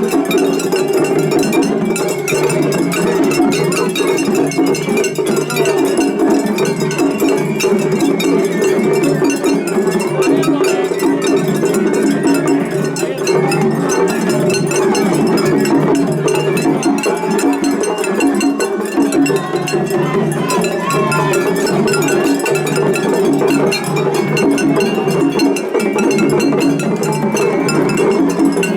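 Japanese festival hayashi music played on a float, led by the rapid, continuous clanging of atarigane hand gongs.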